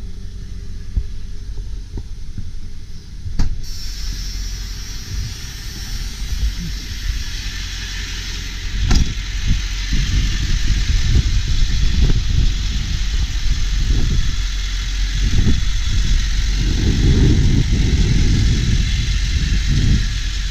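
Ford E-450 box truck's 7.3L PowerStroke turbo-diesel V8 idling steadily. There is a sharp click about three and a half seconds in, and from about nine seconds on irregular low thumps and rumbles come over the idle.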